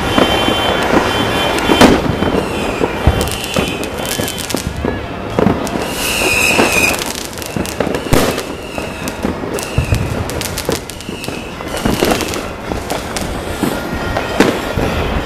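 Fireworks and firecrackers going off all around, a dense crackle of bangs with many sharp reports. Short high tones sound every couple of seconds.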